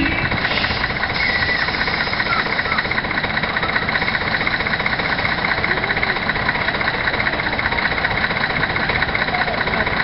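The diesel engine of the Nanbu Jukan Railway railbus Kiha 102 idling steadily with an even, fast knocking rhythm.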